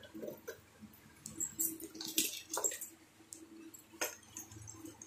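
Light rustling and scattered clicks of cables and small kit parts being handled on a workbench, over a faint steady hum.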